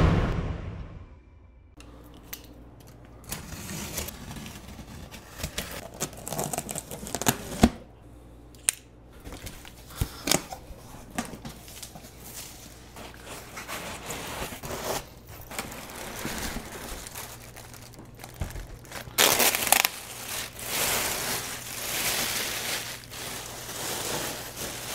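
Cardboard box flaps and packing being handled while unboxing a 3D printer: irregular rustling and crinkling of plastic wrap, cardboard scraping and occasional sharp knocks, busiest near the end. It opens with the tail of a whoosh sound effect fading out.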